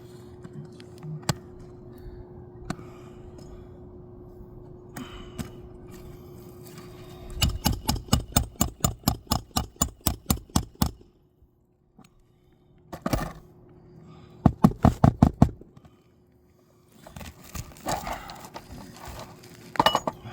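Hammer blows on a 3-tab asphalt shingle roof: a quick run of about seven blows a second for roughly four seconds, then a couple of blows and another short quick run.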